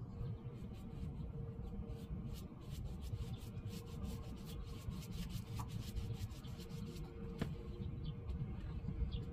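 A brush rubbing stain onto a wooden door in quick scratchy strokes, several a second, which stop after about seven seconds; a single sharp click follows.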